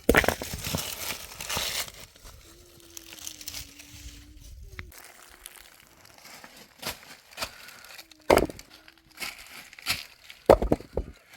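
Crinkling and rustling handling noise, loudest in the first two seconds, followed by scattered sharp clicks and knocks.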